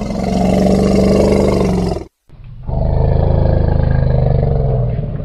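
Cartoon mutant woolly mammoth's roar sound effect, a stock creature roar also used for elephants and monsters. It comes as two long, low roars with a brief break between them, the second fading near the end.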